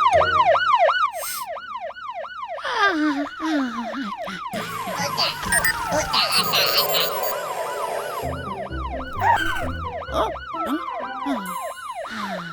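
Cartoon siren sounding in a fast yelp, its pitch rising and falling about three times a second. It gives way to busier music and chimes in the middle and comes back near the end, with a few falling whistle-like glides.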